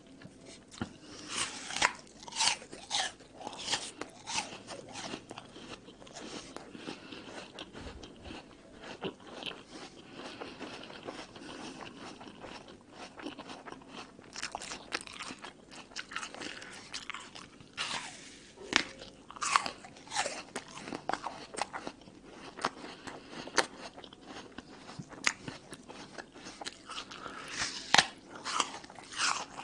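Close-up crunching of a crisp red apple being bitten and chewed. Sharp crunchy bites come in clusters about two seconds in, around the middle and near the end, with softer wet chewing between.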